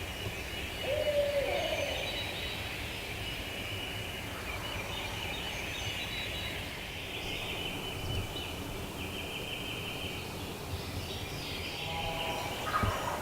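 Dawn woods with a steady high chorus of birds calling, and a short distant wild turkey gobble about a second in.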